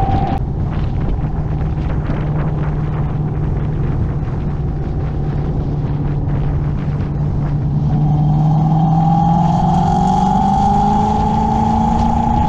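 Ford Mustang's engine running steadily under way; its pitch climbs slowly over the last few seconds as it speeds up.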